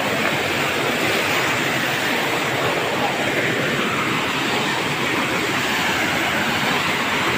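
Waterfall rushing: a steady, even sound of water pouring over rocks, its tone shifting slowly.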